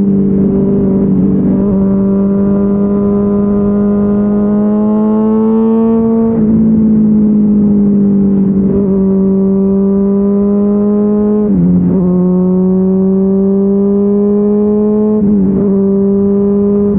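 Honda CBR600RR's inline-four running through a GPR Deeptone exhaust with the dB-killer removed, held at a steady high engine speed while riding. The pitch creeps up slowly and dips briefly several times, about every two to five seconds, each time coming straight back.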